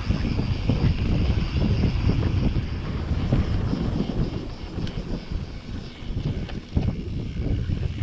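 Wind buffeting the microphone, mixed with the rumble and frequent small knocks of a mountain bike rolling fast downhill over a dirt trail.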